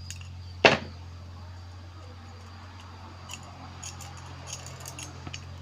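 Small metal parts of a gas-stove burner assembly being handled as it is taken apart: one sharp clack less than a second in, then a few light clicks and ticks, over a steady low hum.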